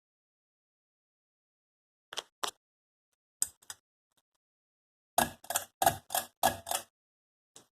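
Ceiling fan pull-chain switch clicking as the chain is pulled: two pairs of clicks, then a quicker run of about six louder clicks about five seconds in, and a few more near the end.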